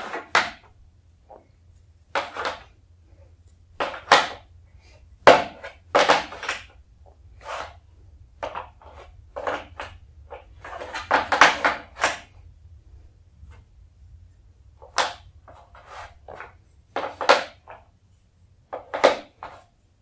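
Wooden PERTRA set pieces being set down and shifted on a wooden base board: a string of separate wood-on-wood knocks and clacks at irregular intervals, with a quick cluster around the middle.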